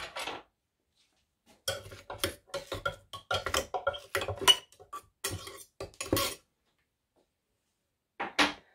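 A utensil knocking and scraping against the blender jar as the blended chickpea paste is worked down around the blade, in irregular clicks for about five seconds. A single short clatter follows near the end.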